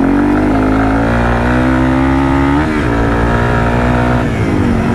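Yamaha TW200's single-cylinder four-stroke engine pulling the bike along a dirt trail. Its pitch rises steadily, dips briefly midway, rises again and falls off about four seconds in as the throttle eases.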